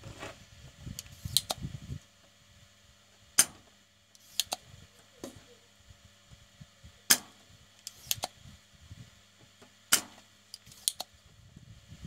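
Sharp, separate clicks and taps, about ten of them, some in quick pairs, as probes and tools are handled against a modem's circuit board, with rumbling handling noise in the first two seconds over a faint steady hum.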